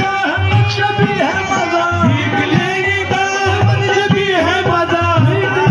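Qawwali music: voices singing a wavering, ornamented melody over a steady hand-drum rhythm.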